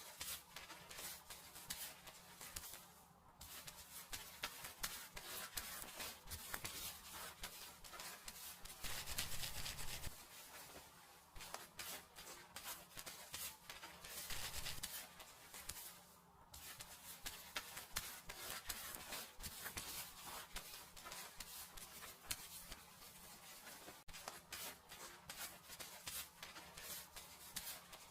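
Close, continuous rubbing and crackly scratching of fingers working through hair and over the scalp during a seated dry hair-wash and head massage. It swells briefly a couple of times.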